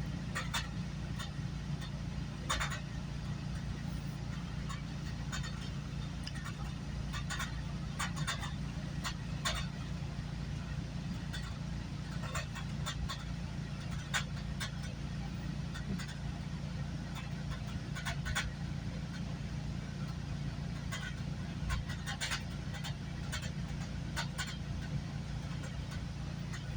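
GO Transit commuter train running along the track, heard from inside the coach: a steady low rumble with scattered sharp clicks and rattles at irregular intervals.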